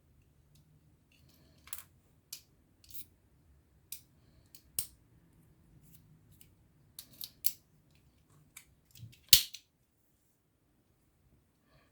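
Hand-handling noises: about a dozen short, irregular clicks and knocks, the loudest a sharp knock about nine seconds in.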